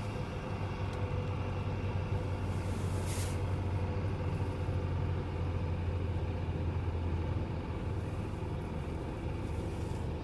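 A minibus's diesel engine in runaway, racing uncontrolled at high revs with a steady low drone, heard from inside a car behind it. A short burst of hiss comes about three seconds in.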